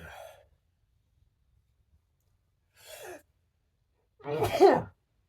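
A person in a sneezing fit: a breathy sigh at the start and a short catching breath about three seconds in, then a loud voiced sneeze about four and a half seconds in.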